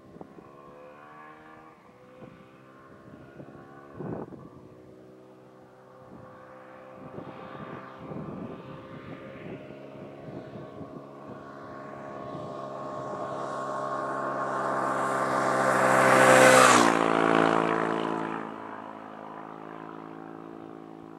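Big Dog V-twin motorcycle approaching and passing by: the engine grows steadily louder, its pitch drops as it goes past about two-thirds of the way in, and it then fades away.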